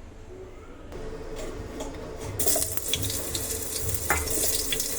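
Food starting to sizzle in hot oil in a pan about halfway through: a sudden loud, steady hiss, with a few knocks of a utensil before and during it.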